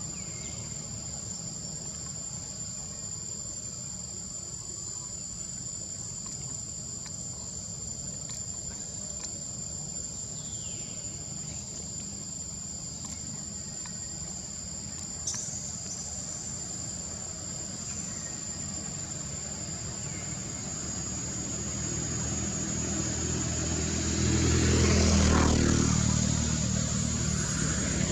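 Steady high-pitched insect chirring over a low engine hum. In the last several seconds a motor vehicle grows louder and passes by.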